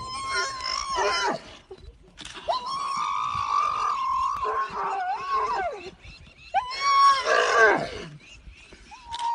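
A zebra screaming in distress under a lioness attack: four long, high-pitched cries, each held at one pitch and dropping away at the end, the second the longest at about three seconds.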